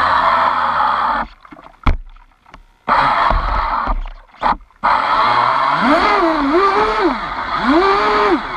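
Radio-controlled racing boat under way: an Aquacraft 2030 brushless motor driving a brass racing prop in a rebuilt Miss Geico 29 hull, with water rushing past, heard through a camera mounted on the hull. The sound cuts out twice in the first half, then comes back steady, with a whine that rises and falls several times in the second half.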